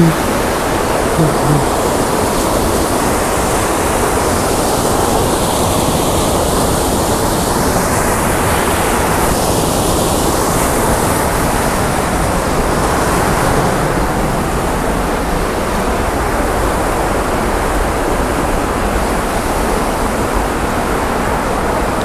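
Mountain stream cascading over boulders: a loud, steady rush of white water that does not let up.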